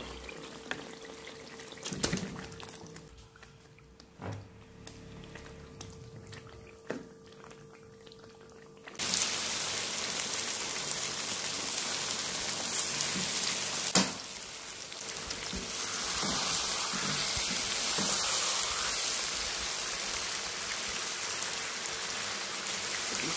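Fish curry masala sizzling and bubbling in a kadai, a steady hiss that starts suddenly about nine seconds in. Before it come a few soft knocks and clicks from the spatula and pan, and a sharp knock follows about five seconds after the hiss begins.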